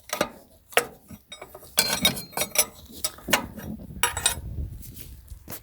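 A steel wrench clinking and tapping against metal fittings on a diesel engine, a series of irregular metallic clinks, some with a short ring, as the turbo oil supply line fitting is worked tight.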